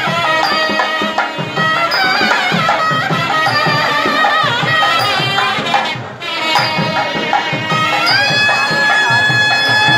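Nadaswaram playing a winding, ornamented melody over thavil drum strokes; about eight seconds in it settles onto one long held note.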